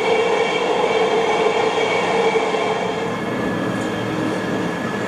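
Electric commuter train running along the track, heard from inside the passenger car: a steady rumble of wheels and running gear with a steady whine over it, a little quieter from about three seconds in.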